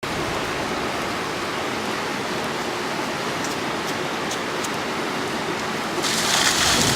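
Steady rushing noise of flood water, with a louder hiss swelling in about six seconds in.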